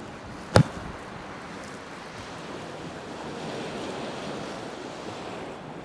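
Gentle waves of a calm sea washing onto the shore, a steady wash that swells a little about halfway through. A single sharp click about half a second in.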